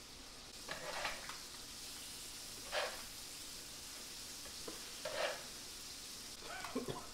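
Fish fillets sizzling as they fry on a hot electric griddle, a steady hiss with a few brief louder scrapes and knocks.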